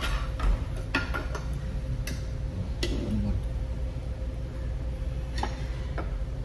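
Metal chopsticks clinking against ceramic bowls and a hot pot while eating: a handful of short, scattered clicks over a steady low hum.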